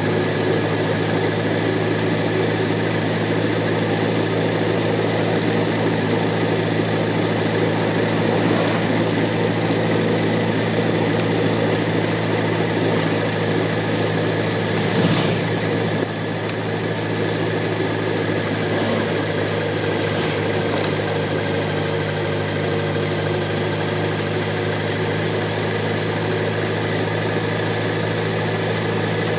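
BMW K1100LT motorcycle's inline-four engine running steadily at a low cruising speed, under road and wind noise. The sound drops slightly about halfway through.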